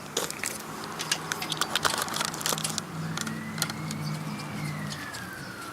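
Scattered light clicks and taps from work on the truck's headlight fittings, over a low steady hum that stops about five seconds in. About three seconds in, a faint police siren starts wailing, rising and then falling.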